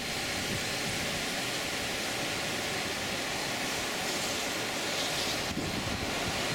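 Steady rushing of a fast mountain creek running high through rapids.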